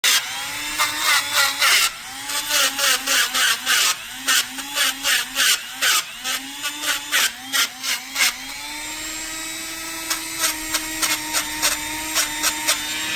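Small electric power tool running, its motor pitch sagging each time it bites into metal with a loud scraping burst, about two or three times a second. The tool spins steadily unloaded for a few seconds past the middle, then starts biting again near the end.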